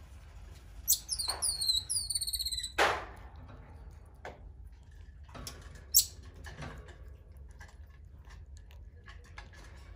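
Common marmoset giving a quick series of high, falling chirps about a second in, followed by a few sharp smacks and clicks of chewing as it eats sweet potato.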